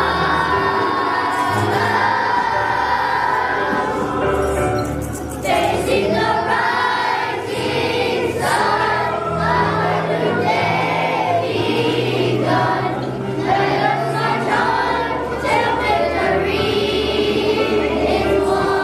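Music with group singing over a band and bass line.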